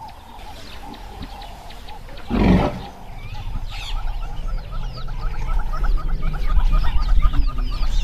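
Birds chirping in quick, repeated rising notes over a low rumbling noise that grows louder toward the end. About two and a half seconds in, a short loud animal call stands out.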